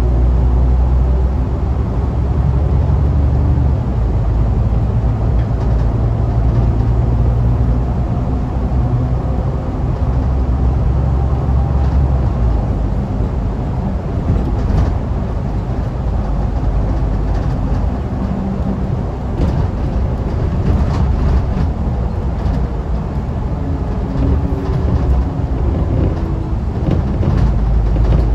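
Alexander Dennis Enviro500 MK2 double-decker bus under way, heard from the lower deck: a loud, steady, deep engine drone mixed with road noise. The drone drops about four seconds in, and faint rattles come and go in the second half.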